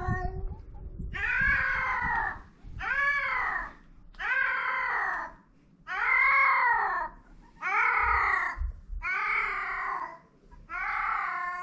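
Cats caterwauling during mating: a string of about seven long, drawn-out yowls, each rising and then falling in pitch, with short pauses between them.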